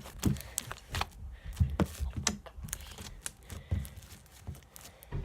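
Glossy slime being stretched and squished by hand, giving off irregular sticky clicks and pops, several a second.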